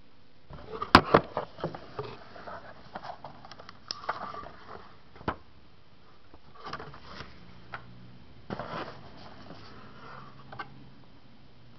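Handling noise from a phone and its packaging being worked by hand: a pair of sharp clicks about a second in, then scattered taps, scrapes and rustling in short clusters.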